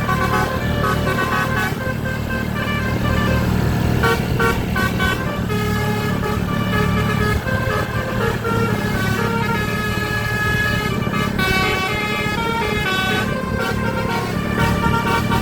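A bus's Basuri telolet horn, a multi-trumpet musical air horn, tooting a tune of quickly changing notes over a steady low engine hum.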